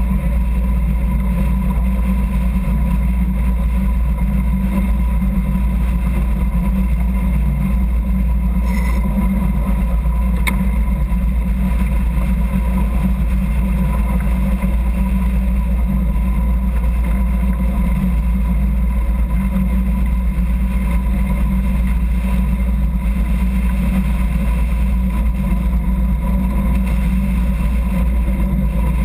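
A sailing yacht's inboard engine running at a steady speed while the boat motors along, with the rush of water along the hull. The low rumble is loud and unchanging.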